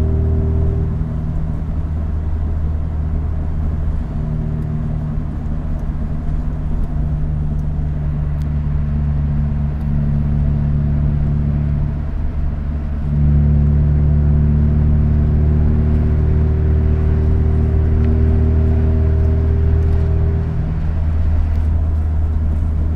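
1994 Honda Accord's four-cylinder engine running at idle, a steady low hum whose speed shifts a few times, stepping up about halfway through and dropping back near the end.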